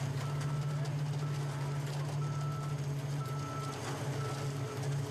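A heavy construction machine's engine running steadily while its backup alarm beeps, one short high beep about every second.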